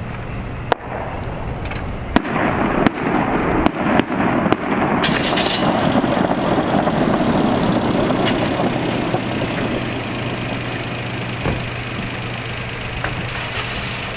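Aerial fireworks shells bursting: about six sharp bangs in the first five seconds, then a long rumbling wash that swells and slowly fades.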